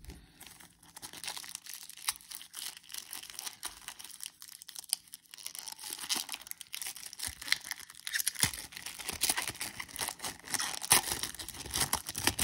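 A football trading-card pack wrapper being torn open and crinkled by hand: a continuous run of small crackles and rips, busier and louder in the second half.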